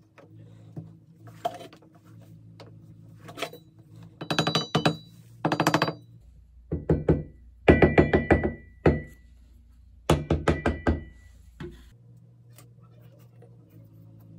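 Wooden tool handle knocking on a ceramic wall tile in several quick bursts of rapid taps, bedding the tile into thin-set mortar.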